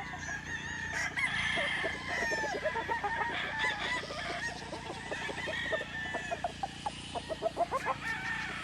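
Gamefowl roosters crowing and clucking, many birds calling over one another.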